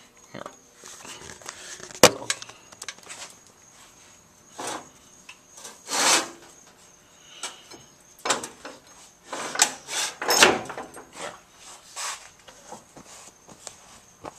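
Hard parts being handled and shifted on a bench: a sharp knock about two seconds in, then several scraping and clunking bursts as the cylinder heads are moved about.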